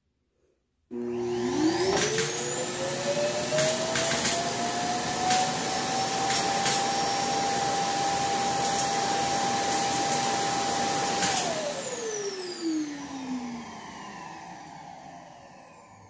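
iRobot Roomba Clean Base self-emptying dock, fitted with a Tupperware container in place of its bag, emptying the robot's bin. Its suction motor starts about a second in with a rising whine and runs steadily, with several sharp clicks along the way. About eleven seconds in it cuts off and spins down with a falling whine that fades away.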